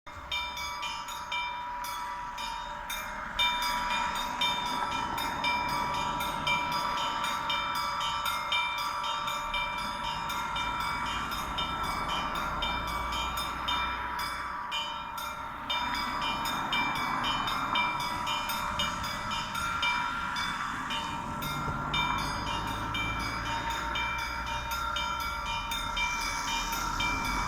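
Russian Orthodox church bells ringing: small bells struck in a quick, steady pattern over the long ringing tones of larger bells.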